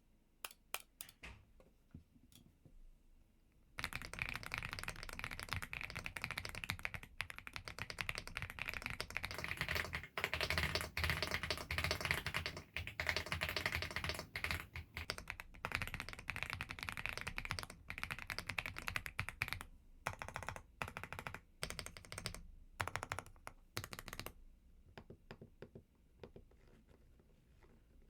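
Mechanical keyboard being typed on: a few single key presses, then about sixteen seconds of fast continuous typing that breaks into short bursts and scattered keystrokes for the rest of the time.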